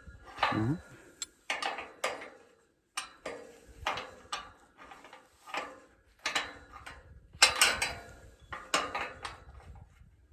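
Metal hand tools and gate hardware clinking and clanking in irregular strikes with short ringing, the loudest about seven and a half seconds in.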